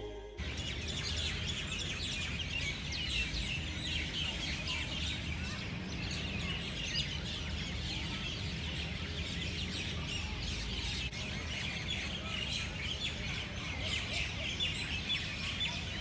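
Many small birds chirping and calling together in a continuous dusk chorus over a steady low background rumble. Music cuts off about half a second in.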